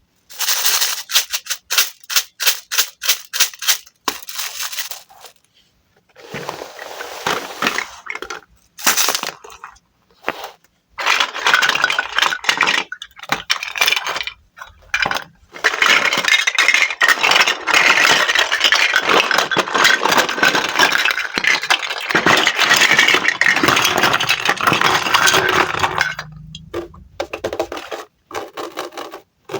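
Wooden play fruit being cut apart with a toy knife and handled. It begins with a quick run of sharp clicks and taps, followed by short scraping passes. A long stretch of dense crackling and scraping runs through the middle, and a few scattered clicks come near the end.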